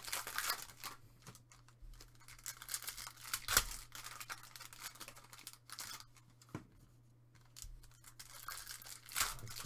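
Silver foil trading-card pack wrappers being torn open and crinkled by hand: irregular crackling rustles, with one sharp loud crackle about three and a half seconds in.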